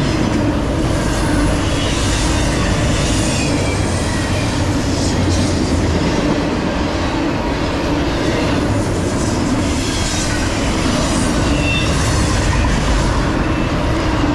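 Norfolk Southern intermodal freight train's double-stack container cars and trailer flatcars rolling past, a steady heavy rumble of steel wheels on rail with brief high wheel squeals now and then.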